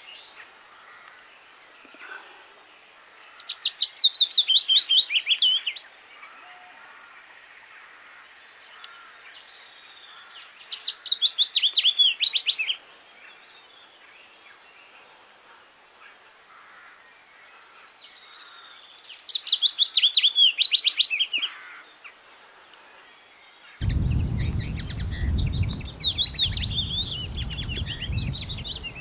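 Willow warbler singing: three phrases about seven seconds apart, each a quick run of sweet notes falling in pitch. Near the end, wind rumble on the microphone comes in under more warbler song.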